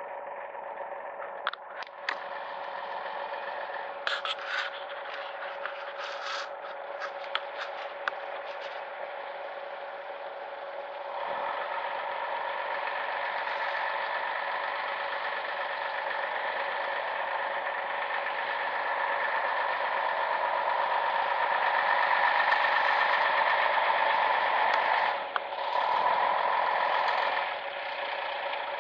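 Scania SBA111 military truck's six-cylinder turbo-diesel engine running as the truck crawls over a rough mud track, growing louder from about a third of the way in. A few sharp clicks and rattles in the first third, and a brief dip in the engine sound near the end.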